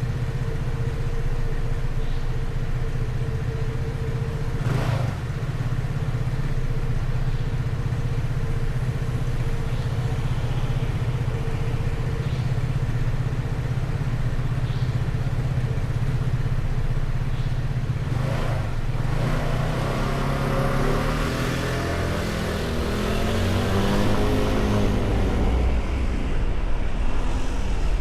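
Road traffic with motorcycle and car engines running steadily, and an engine revving up and down about twenty seconds in.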